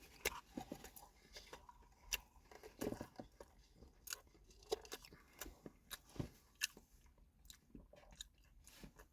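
A person chewing food close to the microphone, faint, with irregular short clicks.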